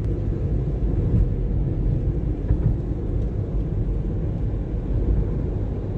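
Steady low rumble of a moving car, as heard inside it.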